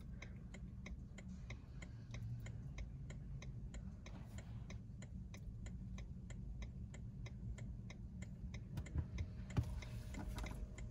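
BMW i3 turn-signal indicator ticking in the cabin, a steady run of evenly spaced clicks over a low background rumble.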